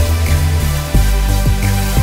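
Electronic background music with a heavy bass line and a steady beat.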